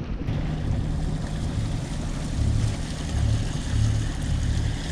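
Sailboat's engine running steadily under way, a low hum that swells and eases, with water rushing along the hull and some wind.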